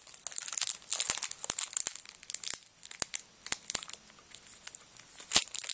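Trading card pack wrapper crinkling and cards being handled, a run of irregular sharp crackles and clicks.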